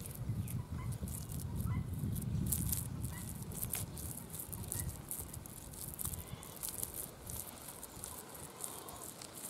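Hard-baked clay crumbling and breaking apart in bare hands, with many small dry crackles as the lumps and grit fall onto gravelly soil. A low rumble underlies the first three seconds.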